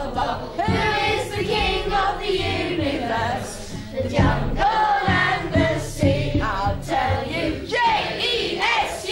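A small group of children and a woman singing a children's action song together.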